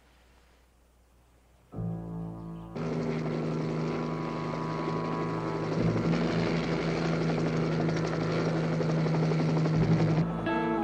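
Near silence, then a dramatic music cue begins with a sudden chord; about three seconds in, the steady noise of a flying helicopter comes in under the music and cuts off near the end while the music carries on.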